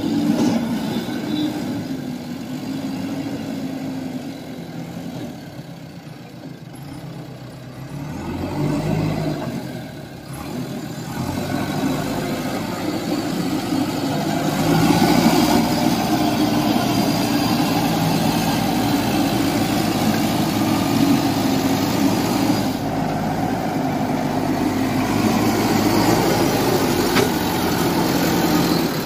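JCB 3DX backhoe loader's diesel engine running as the machine moves about. It is fainter at first and grows louder from about ten seconds in as the machine comes close, then holds a steady loud drone.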